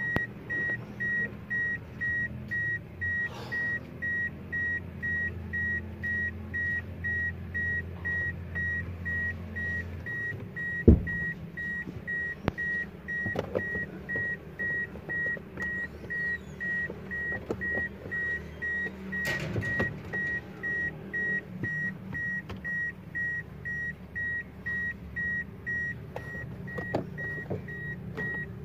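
A car's interior warning chime beeping steadily at about two beeps a second with the driver's door open, with a single sharp knock about eleven seconds in.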